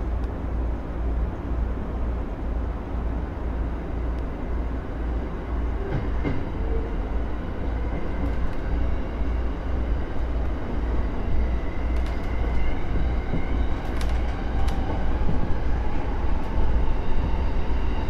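Electric commuter train running on the rails, heard from inside the driver's cab: a steady rolling rumble that grows louder toward the end, with a few sharp clicks in the second half.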